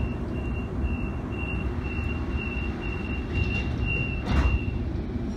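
Suburban train's door-closing warning: a steady series of high electronic beeps, about two a second, over the low rumble of the train. A brief whoosh about four seconds in, as the doors shut, is the loudest sound.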